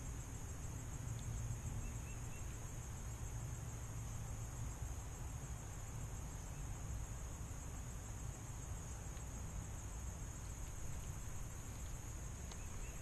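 Outdoor pond-side ambience: a low wind rumble under a steady, high-pitched insect drone, with a few faint bird chirps about two seconds in.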